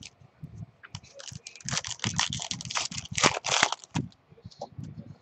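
A Topps Archives baseball card pack being torn open, with a dense crackle of wrapper tearing and crinkling for about three seconds, amid softer handling rustle.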